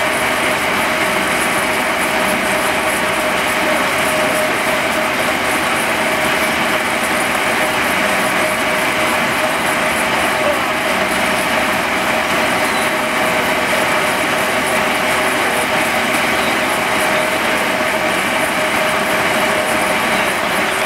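Steam-driven circular saw bench cutting a log, belt-driven from a 1903 Burrell 6 NHP single-cylinder general purpose engine. The blade and drive belt make a loud, steady whine with no break or change in speed.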